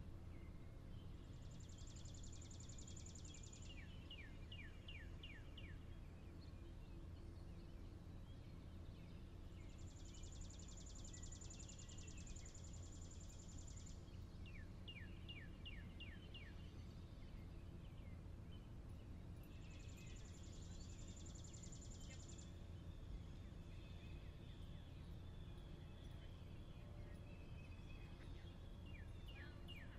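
Faint steady low hum of room tone with a bird singing three times. Each song is a high buzzy trill lasting a few seconds, followed by a quick run of about five falling notes.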